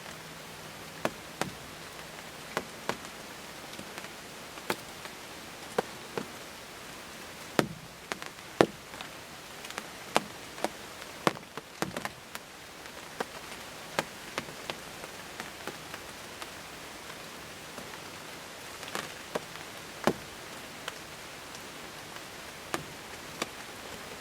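Light rain with scattered drops tapping irregularly on a ground blind over a steady hiss of rainfall.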